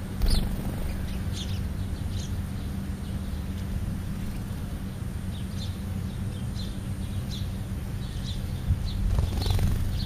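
House sparrows chirping: short, high chirps scattered through, several in quick succession at times, over a steady low hum. A brief low thump right at the start and a louder low rumble near the end.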